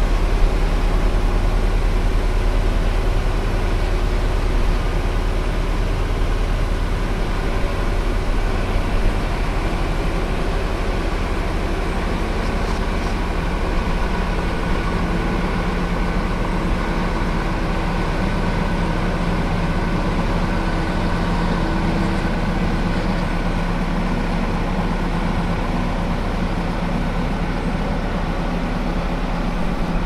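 Heavy engine running steadily with an even, unchanging hum.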